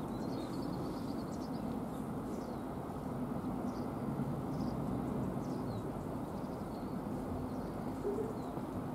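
Distant, steady drone of an LNER Class 43 HST's diesel power cars as the train draws away, with small birds chirping a few times.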